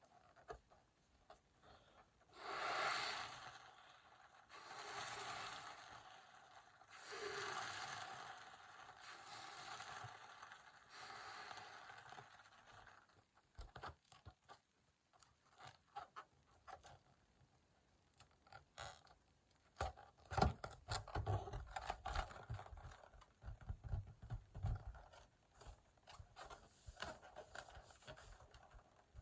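About five long puffs of breath blown into a clear latex confetti balloon, then scraping, squeaking and small clicks of the rubber being handled as its neck is knotted.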